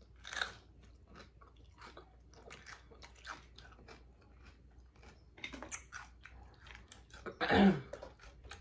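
Close-up chewing of a gravy-covered jalapeño pepper: many short mouth clicks, with a louder crunching bite near the end.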